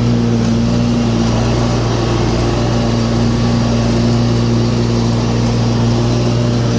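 Dixie Chopper Iron Eagle zero-turn mower's 23 hp Briggs & Stratton engine running steadily at full throttle with the blades engaged, cutting through taller grass. The engine hum holds one even pitch and level.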